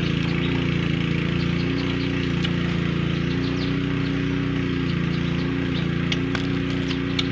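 A steady mechanical drone, like a motor or engine running, holding several constant low tones. A few sharp clicks come near the end.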